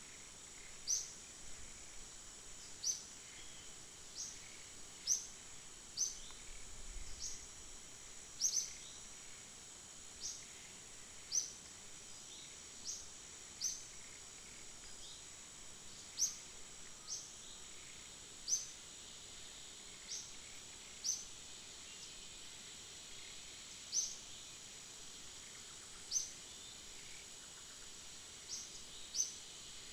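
Outdoor insect drone, a steady high hiss, with a bird giving short, high, falling chirps every second or two.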